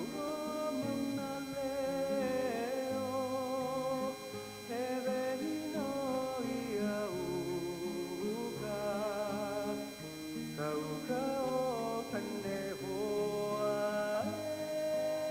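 A song with a male singing voice over acoustic guitar, in a country style.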